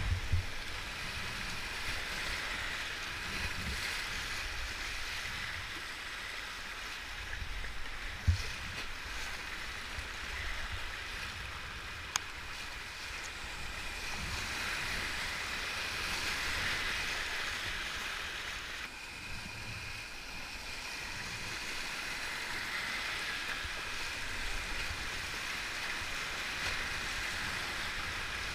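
Rushing whitewater of a steep river rapid, heard close up from a kayak running it, with a few short low thumps, the clearest about a third of the way in.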